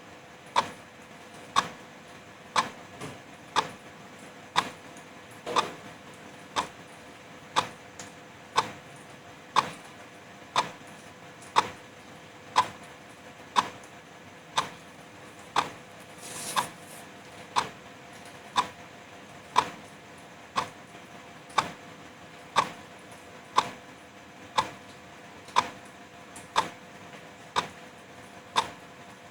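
Wall clock ticking evenly about once a second over a steady soft hiss of drizzle.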